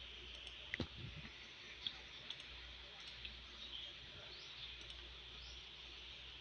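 A handful of faint, scattered clicks over a steady low hiss: clicks from working an on-screen drawing tool.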